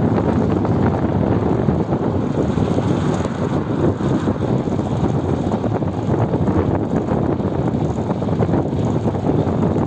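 Wind buffeting the microphone of a camera carried on a moving bicycle: a loud, steady rumbling noise with no break.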